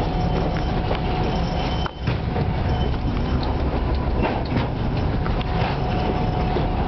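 Cab noise of a 2M62 diesel locomotive under way: the steady running of its two-stroke V12 diesel engine under wheel-on-rail noise, with scattered clicks over rail joints and a steady high tone. The level dips briefly about two seconds in.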